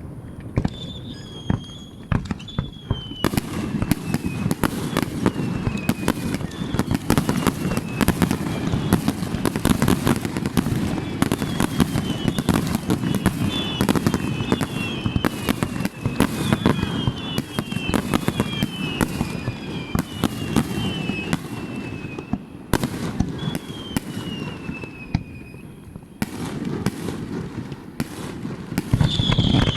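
Fireworks display: a dense, continuous barrage of bangs and crackles over a steady low rumble, with many short whistles that fall in pitch.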